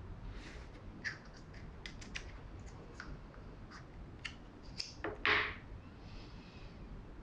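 Small scattered clicks and taps of a plastic shape cutter and fingers handling strawberry slices on a wooden cutting board, with one louder short scrape a little after five seconds in.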